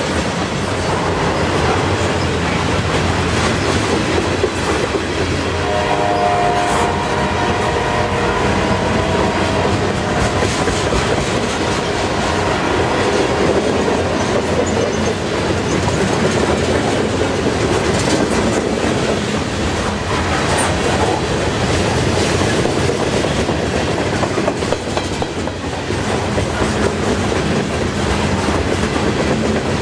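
Freight cars rolling steadily past close by, a continuous rumble of wheels on rail with clickety-clack over the rail joints. About six seconds in, a chord of several steady tones sounds for roughly four seconds over the rumble.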